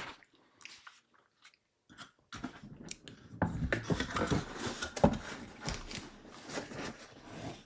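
Crinkling and rustling of packaging being handled: a few scattered crackles, then from about two seconds in a dense, continuous crackle.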